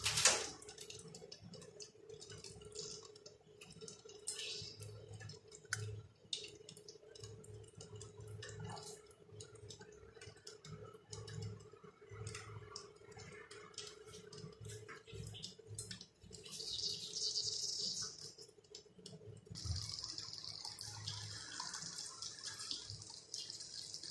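Gulab jamun dough balls frying in lightly warm oil: a soft sizzle with scattered small crackles and clicks, and a sharp knock right at the start. The sizzle swells briefly and then turns to a steadier hiss for the last few seconds.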